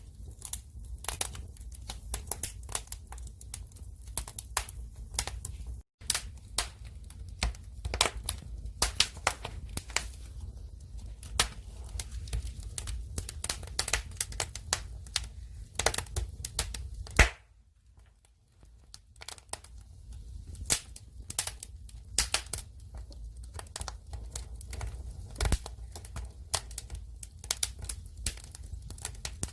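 Firewood fire crackling and popping: sharp, irregular snaps over a steady low rumble, thinning out briefly past the middle before picking up again.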